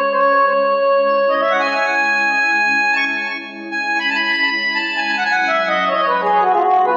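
Casio CT-X9000IN electronic keyboard playing its oboe voice: a sustained reedy melody over a held, pulsing chord, with a descending run of notes near the end.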